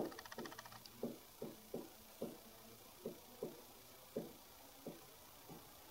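Dry-erase marker writing on a whiteboard: about a dozen short, faint strokes in an uneven string.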